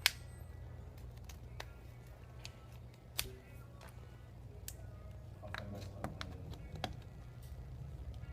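Scattered small clicks and taps of a tool and fingers working on a tablet's casing during disassembly, with a sharp click right at the start and another about three seconds in, over a steady low hum.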